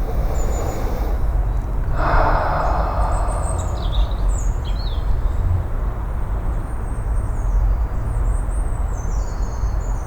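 Outdoor ambience with a steady low rumble and small birds chirping in short, quick calls through the second half. A brief burst of rustling noise about two seconds in.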